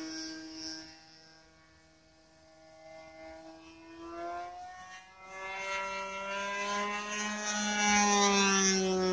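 OS .55AX two-stroke glow engine with a Pitts-style muffler, turning a 13x6 propeller on an RC plane in flight. It fades off into the distance, then grows louder as the plane comes back, loudest near the end, with the pitch dropping as it passes.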